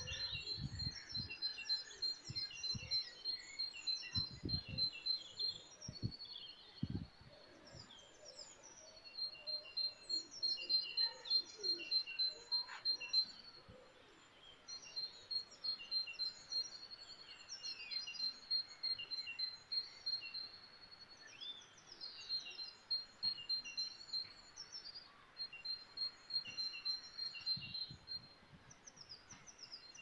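Several songbirds singing together: one bird repeats long runs of fast, even high notes lasting several seconds at a time, over scattered chirps and trills from others. A few low thumps come in the first seven seconds.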